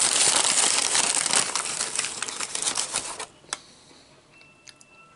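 Paper fast-food bag crinkling and rustling as a hand rummages inside it. The rustling stops after about three seconds, and a single click follows.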